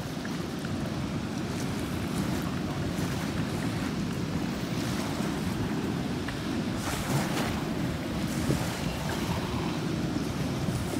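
Steady low rush of river water pouring through the open gates of a flood-control spillway, with wind buffeting the microphone now and then.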